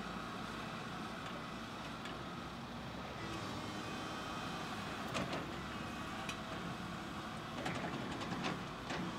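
Komatsu PC220 excavator's diesel engine running steadily while it digs and lifts a bucket of dirt. A few sharp knocks and clanks come about five seconds in and again near the end.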